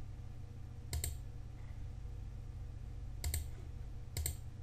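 Three computer mouse clicks, each a quick double tick of press and release, about one, three and four seconds in, over a steady low hum.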